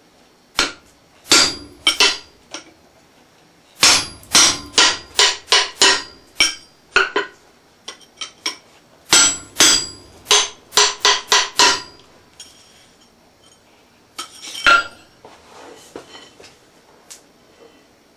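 Hand hammer driving a punch through a red-hot steel bar on an anvil to make a slot: sharp ringing metal-on-metal strikes. A few single blows come first, then two quick runs of about eight strikes each, about two a second, and one last blow about three-quarters of the way in.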